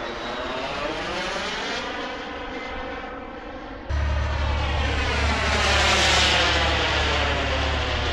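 Kingtech K102 model jet turbine in flight, a continuous jet whine and rush that sweeps in pitch as the jet passes. About four seconds in, the sound jumps abruptly louder with a steady low rumble added, peaking a couple of seconds later.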